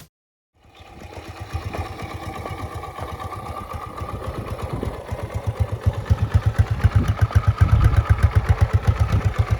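Restored Alpha 110cc moped's single-cylinder four-stroke engine running with an even, rapid beat. It comes in about half a second in and grows louder past the middle.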